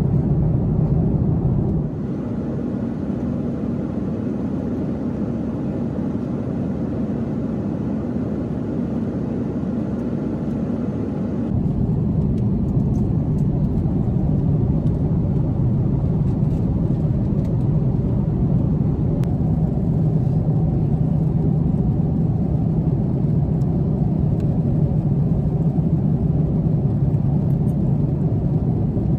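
Airliner cabin noise in flight: a steady low rush of engine and airflow noise. It drops slightly in level about two seconds in and comes back up a little before the halfway point.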